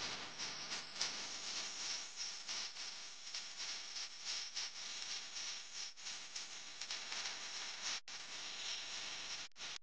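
Faint steady hiss with a fine crackly texture, cutting out briefly twice near the end.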